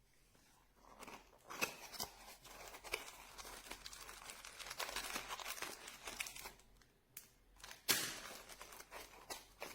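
Crinkling and rustling, as of something crinkly being handled at close range: a run of irregular crackles with a louder crackle near the end.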